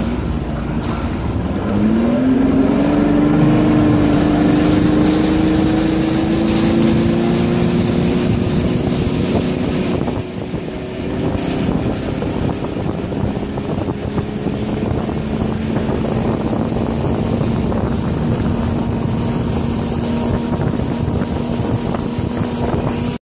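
Bass boat's outboard motor rising in pitch about two seconds in as the boat speeds up, then running steadily at speed, with wind buffeting the microphone and water rushing past the hull.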